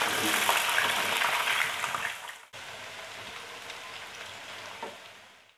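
Potato pieces sizzling as they deep-fry in hot oil. The sizzle is loud at first, breaks off abruptly about two and a half seconds in, then goes on more quietly and fades.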